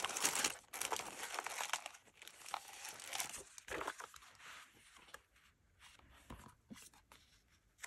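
Sheets of craft paper rustling and crinkling as they are handled and sorted through by hand. The rustle is loudest in the first couple of seconds, then thins to light, scattered rustles and taps.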